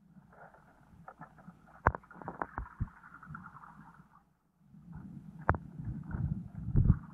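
Muffled underwater sound through a submerged camera: low rumbling water noise with scattered sharp clicks and knocks, the strongest about two seconds in and again about five and a half seconds in. The rumble drops out briefly a little past four seconds and comes back louder towards the end.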